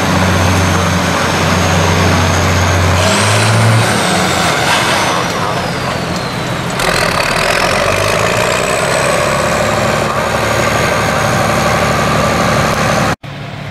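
Tractor engine running as a red tractor drives slowly past, with a steady hum that changes abruptly twice. A high whine glides down and then back up in pitch in the middle. The sound drops out briefly near the end.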